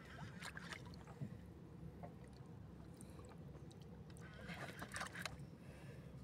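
Quiet low rumble of wind and water around a small outrigger boat at sea. A few faint clicks and rustles come about half a second in and in a short cluster near five seconds.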